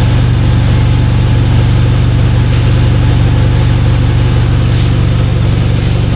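Turbocharged Honda Civic's R18 1.8-litre inline-four idling steadily, with no revving.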